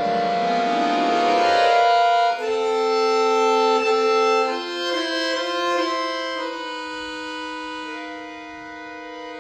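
Accordion playing solo: a quick rising run of notes, then sustained chords that change a few times and slowly grow quieter.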